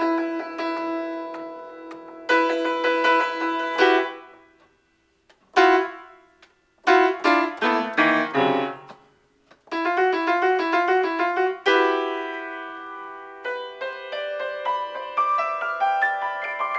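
Piano being improvised on: sustained chords rung out, then after a short silence a run of notes stepping downward. After a second brief gap come repeated chords that grow busier with quicker notes toward the end.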